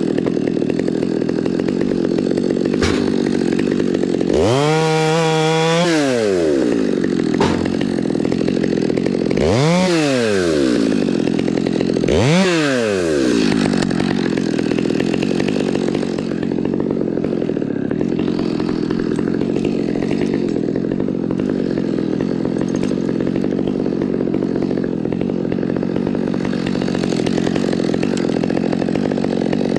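Top-handle chainsaw revved up and let back down three times, then held at a steady high speed for about the last fifteen seconds.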